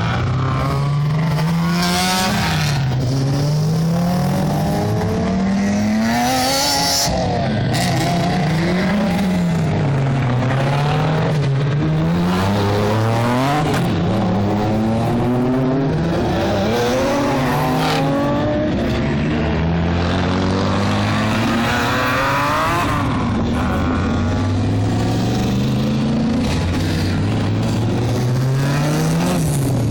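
Youngtimer historic race-car engines running hard. Their pitch climbs and drops back again and again as they accelerate and change gear.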